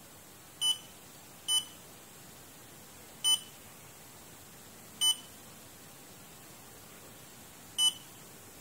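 Honeywell TB3240 digital thermostat's buzzer beeping once per key press as the set temperature is stepped up: five short beeps at uneven intervals, each one acknowledging a button press.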